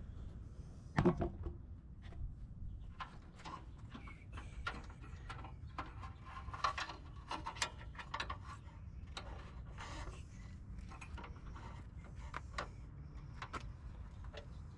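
Light clicks, taps and rubbing as a hood release cable and its fittings are handled and worked into place by hand, with one louder knock about a second in.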